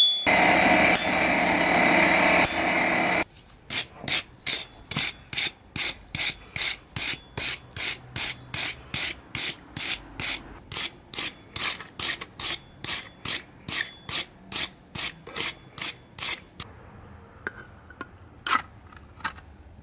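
Hammer blows on a small forged steel can opener resting on an anvil: a long, even run of sharp strikes, a little over two a second, after about three seconds of continuous scraping. The blows stop a few seconds before the end, leaving only a few light metallic clicks.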